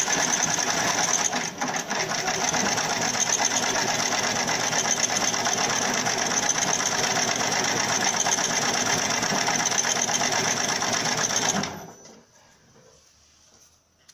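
HighTex FIBC500 heavy-duty net sewing machine running at speed, rapidly stitching through rope netting, with a brief dip about a second and a half in. It stops abruptly about twelve seconds in.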